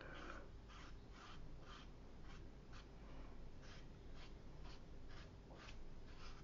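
Watercolour brush dabbing and stroking across textured watercolour paper, a faint run of short scratchy strokes at about two or three a second.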